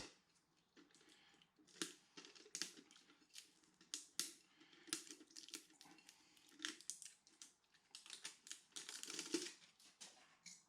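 Faint handling noises: scattered light clicks and taps with short scratchy rustles, and a longer scratchy stretch near the end.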